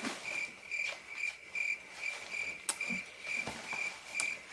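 A cricket chirping steadily, about three short chirps a second. A sharp click about two-thirds of the way through and a few soft knocks.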